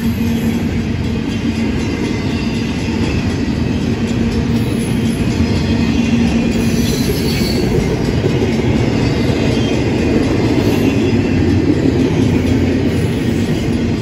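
Union Pacific double-stack intermodal container cars rolling past close by: a loud, steady rumble of steel wheels on the rails.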